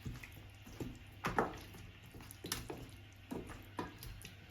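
Raw chicken drumsticks being mixed in a wet marinade of spices and sauces in a bowl: irregular soft wet squelches and slaps.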